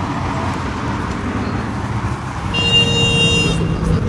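Steady rumble of road traffic and car engines. About two and a half seconds in, a car horn sounds once for about a second.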